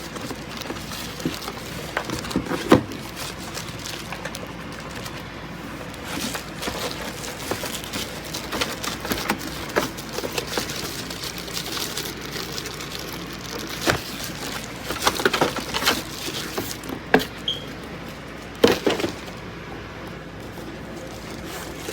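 Keys on a ProtoArc EK01 Plus ergonomic keyboard being pressed: scattered, irregular clicks, with a quick run of several clicks about two thirds of the way through, over a steady background hiss.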